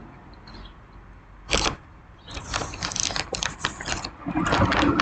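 Candy-coated popcorn being bitten and chewed: one short crunch about one and a half seconds in, then a run of crisp crackling crunches.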